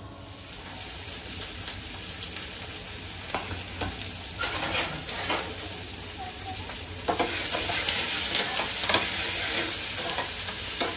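Food sizzling in a frying pan on a gas stove, with a spatula stirring and scraping against the pan in small clicks. The sizzle grows louder about seven seconds in.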